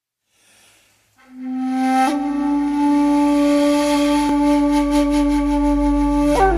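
Instrumental song intro: a flute comes in about a second in and holds one long low note over a soft, deep sustained pad, sliding up in pitch near the end.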